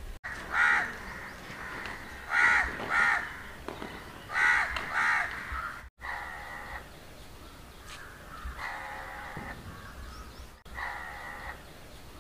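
Crows cawing repeatedly, in loud separate caws.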